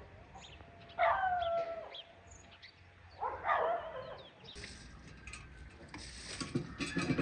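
An animal calls twice, each call drawn out for about a second: one about a second in and one near the middle. A few light knocks come near the end.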